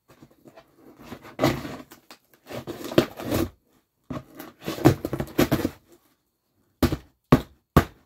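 Knife cutting and scraping through packing tape on a cardboard shipping box, in several bursts, followed by three sharp clicks near the end.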